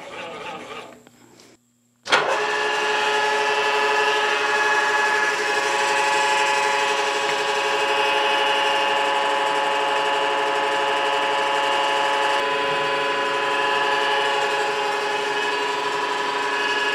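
Do-All vertical milling machine running with its end mill cutting a hex flat on a metal part: a loud, steady machining sound with a ringing whine. It starts abruptly about two seconds in, after a brief silence.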